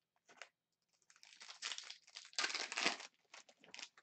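Crinkly plastic wrapper of a hockey card pack being crumpled and torn open. There is a short crinkle at first, then a longer, louder run of crackling about a second in, and a few short crinkles near the end.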